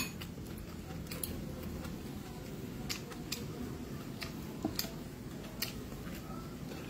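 Faint, scattered clicks and taps from someone eating a meal at a table, about eight in all at irregular intervals, over a low steady hum.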